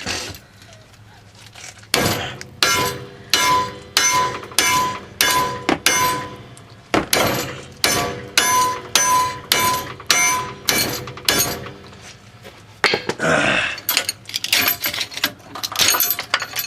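Hammer repeatedly striking a rusted sway bar end link to drive it out of the sway bar, at about two ringing metal-on-metal blows a second, with a short pause about twelve seconds in. The link is rust-frozen in its slot.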